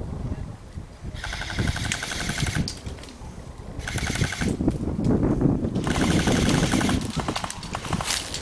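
Airsoft gun firing three rapid full-auto bursts, the first about a second and a half long, the second short, the third about a second long, with rustling and handling noise from movement through dry grass underneath.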